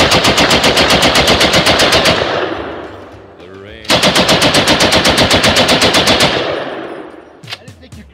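Machine gun firing fully automatic: two long bursts of rapid, evenly spaced shots, the second starting about four seconds in, each trailing off in echo.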